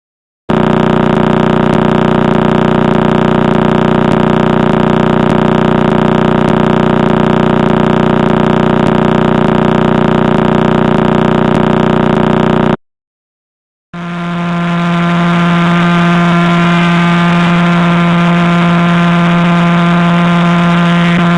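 Pulsar radio signals converted to sound: the pulses come so fast they merge into a steady buzzing tone, its pitch set by how fast the pulsar spins. The first buzz stops about 13 seconds in, and after a second of silence a second pulsar's steadier hum fades in.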